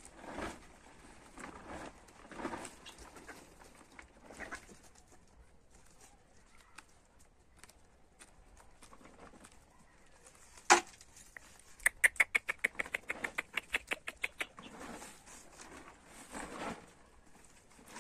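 Hens pecking at and tugging a heap of leafy green plants, the leaves rustling in soft bursts about once a second. About halfway through comes a sharp click, then a rapid run of short high chirps, about eight a second, lasting a little over two seconds.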